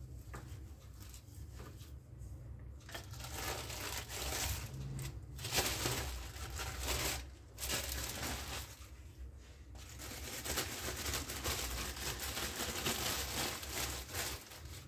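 Soft strokes of a rolling pin over plastic film, then the plastic film crinkling and rustling loudly in stretches of a few seconds with short pauses as it is folded around the rolled dough and lifted.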